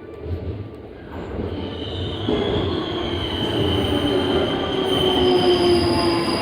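Electric commuter train pulling into a station platform: a rumble that grows steadily louder as it approaches, joined about a second and a half in by a high, steady squeal of wheels and brakes that sinks slightly in pitch as the train slows.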